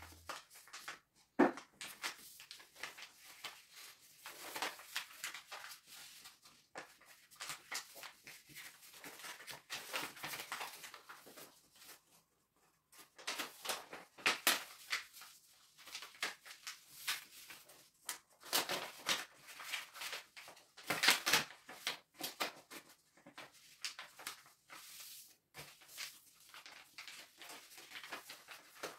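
A sheet of paper being folded and creased by hand into a paper airplane: irregular short rustles and crinkles, with a few brief pauses between folds.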